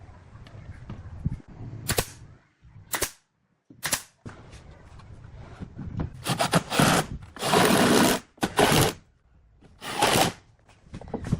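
Woodworking tool noise: three sharp knocks about a second apart, then several harsh bursts of noise, each lasting up to about a second.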